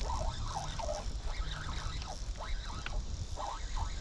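Birds calling repeatedly, short rising and falling cries that overlap, over a steady low rumble of wind and water.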